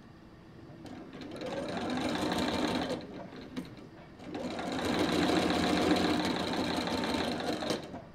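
Bernina sewing machine stitching a seam through quilt patchwork in two runs. It starts about a second in and builds up speed, stops near the three-second mark, then starts again after about a second and cuts off suddenly just before the end.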